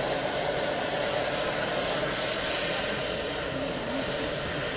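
Small gas turbine of a radio-controlled scale Lama helicopter running in flight, a steady high whine over a broad rushing noise.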